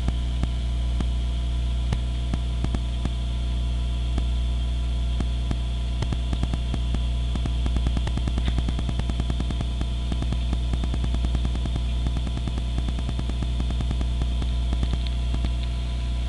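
Steady low electrical hum with a constant crackle of small clicks, like static picked up by a recording microphone.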